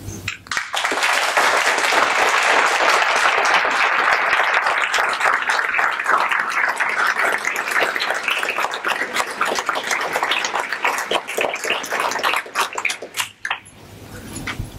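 Audience applauding: a roomful of people clapping, starting about a second in and dying away near the end.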